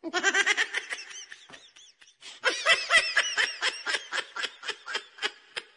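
High-pitched giggling laughter in two bouts: a quick run of pulses, a short break about two seconds in, then a longer run whose pulses slow and fade away.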